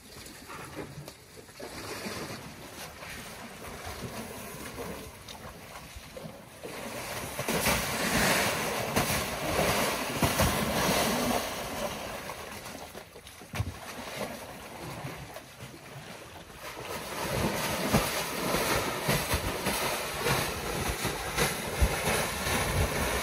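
African elephants sloshing and splashing in a wallow of wet mud, with the occasional dull thud, over wind buffeting the microphone. The sloshing grows louder about a third of the way in, eases off, then picks up again near the end.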